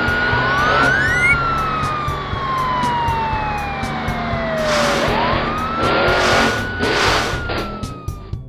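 Siren wailing in slow cycles: the pitch climbs quickly, then falls gradually over about four seconds, and climbs again about five seconds in. Short bursts of hissing noise come in the second half, with background music.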